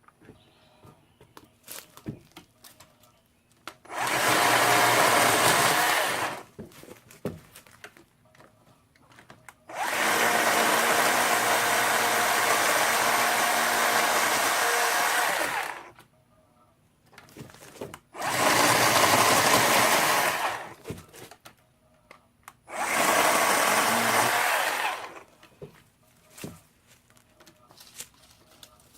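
WORX 40-volt battery chainsaw's electric motor running in four bursts while cutting azalea limbs, the longest about six seconds; small clicks and knocks in the pauses between.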